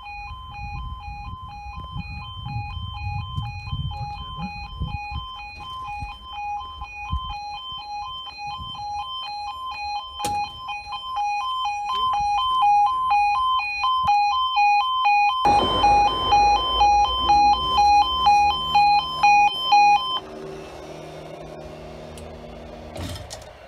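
Automatic half-barrier level crossing's two-tone warning alarm, switching rapidly between a high and a low tone, stopping about 20 seconds in. From about 15 seconds a loud rushing noise joins it.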